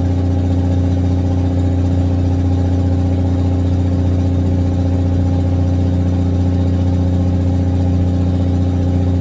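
Fishing boat's engine running steadily at sea, a loud, even, low hum.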